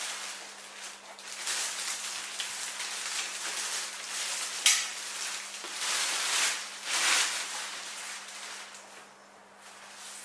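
Clear plastic bag crinkling and rustling in uneven bursts as a folding metal table frame is pulled out of it, with one sharp click about halfway through.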